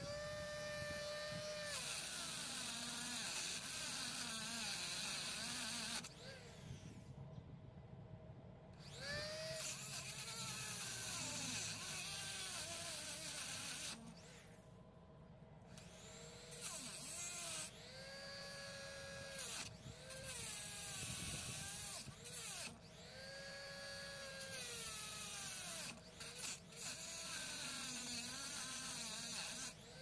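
Handheld rotary tool with an abrasive cut-off wheel cutting into the steel plier jaws of a multitool: a high motor whine that repeatedly dips in pitch and recovers, over a gritty grinding hiss. Twice the grinding stops for a second or two.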